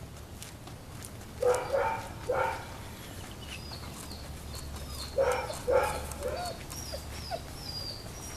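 A dog barking: four barks in two pairs, about a second and a half in and again near five seconds in.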